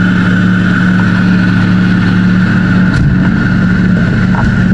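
An engine running at a steady speed: a loud, even drone with a constant higher whine over it. A short click comes about three seconds in.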